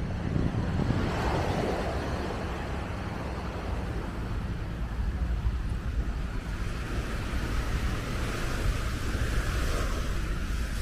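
Wind buffeting the microphone over a steady outdoor rush of noise, which swells briefly in the first couple of seconds and again near the end.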